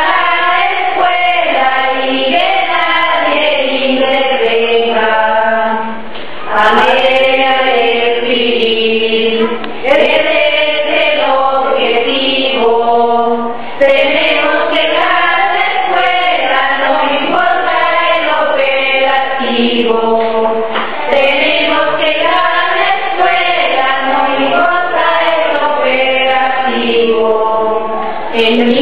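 A choir singing, its voices holding long notes that slide up and down in pitch.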